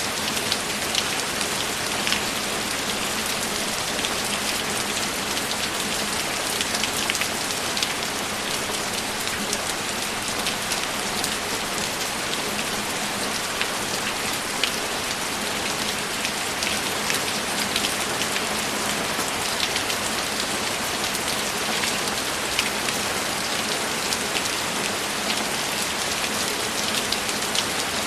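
Steady rain falling, with individual drops tapping on a surface throughout.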